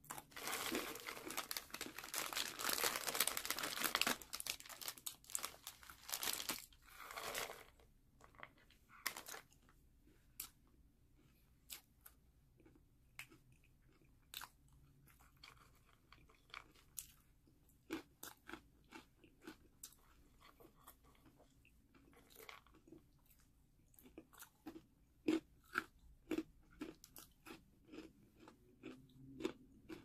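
A person eating a crunchy snack: dense crunching for the first four seconds, then slower, scattered crunches and chewing clicks.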